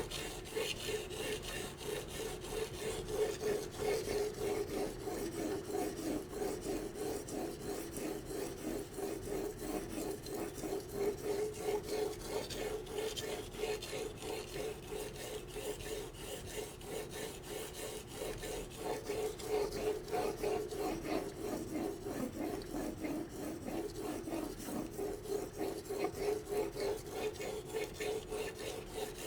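Carbon-steel santoku blade stroked back and forth on a wet Shapton Pro 1000-grit whetstone: a steady run of even, repeated rasping strokes as the edge bevel is ground at a fixed 15-degree angle.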